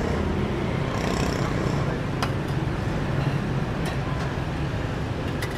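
Steady street traffic rumble, with a few sharp clinks about two, four and five and a half seconds in.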